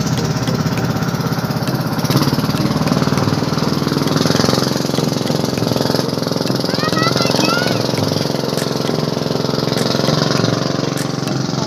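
Small engine of a motorized outrigger boat running steadily, with a continuous pulsing drone.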